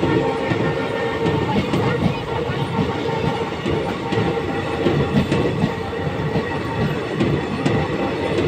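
Indian Railways passenger coaches rolling past close by, a steady rumble of steel wheels running on the rails.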